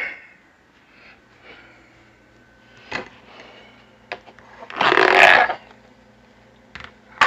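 A microwave being opened and a covered dish taken out: a click, then a loud scraping rustle lasting about a second, then two sharp clicks near the end, over a low steady hum.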